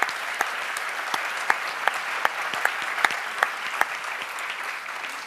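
Audience applauding, many hands clapping at once, thinning out toward the end.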